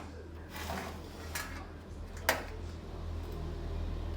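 Light metallic clinks and taps from handling parts and tools, with one sharp click a little over two seconds in, over a steady low hum.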